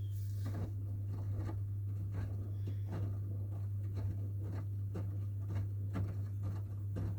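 Washing machine tumbling a load of laundry: soft knocks and patter, about two a second, over a steady low hum.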